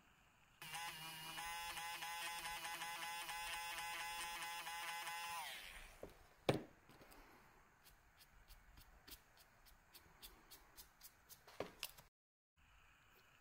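A small electric motor buzzes steadily for about five seconds, then winds down with a falling pitch. A sharp click follows, then a run of light ticks, about three a second.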